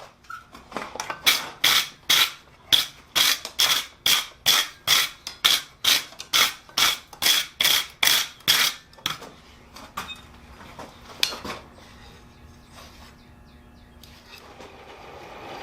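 Blacksmith's hammer striking hot steel on an anvil in a quick, even run of ringing blows, about three a second, forge-welding and dressing a scarf joint. The blows stop about nine seconds in, followed by a few lighter scattered knocks.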